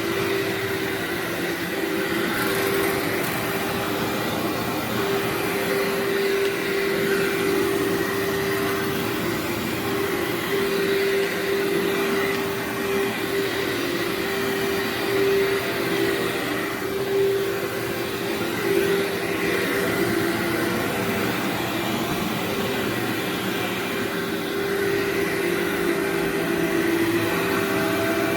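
Workhorse vacuum cleaner running steadily while vacuuming berber carpet, pulling out dog hair and embedded dry soil; a constant motor hum with a steady whining tone.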